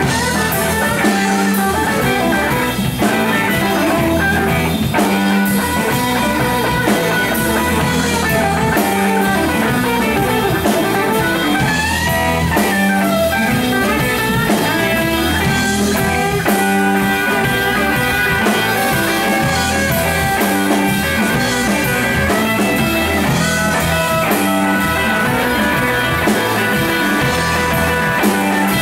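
Live blues-rock band playing an instrumental passage: an electric guitar plays lead over a drum kit, with string bends about midway through.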